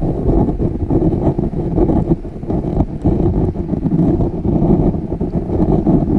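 Stream current rushing over a submerged camera, heard as a steady, muffled low rumble with scattered faint clicks.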